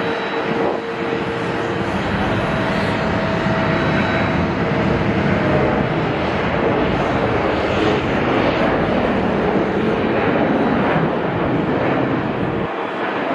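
Boeing 737 twin jet engines at takeoff thrust: a loud, steady jet noise with a whining tone through the takeoff roll, rotation and initial climb.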